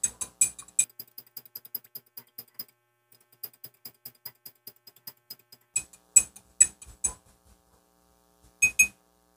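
Metal spoon stirring salt water in a drinking glass, clinking against the glass several times a second with a light ringing after each clink. The clinks grow fainter midway, come back louder about six seconds in, and end with two sharp clinks near the end.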